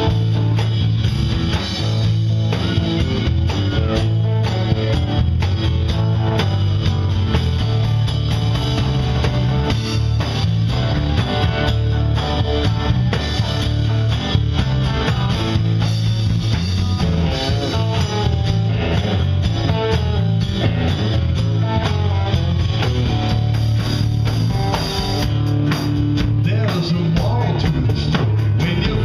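Live band playing a rock/blues song: acoustic guitar strumming, electric bass and electric guitar, with drums keeping a steady beat.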